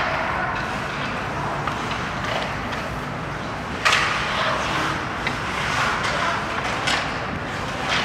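Ice hockey play in an indoor rink: skates scraping on the ice, with a sharp clack of stick and puck about four seconds in and a lighter one near seven seconds, over a murmur of spectators.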